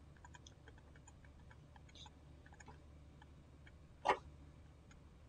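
Faint, irregular ticks of a stylus tapping on a tablet screen while letters are handwritten, with one louder short click about four seconds in, over a low steady hum.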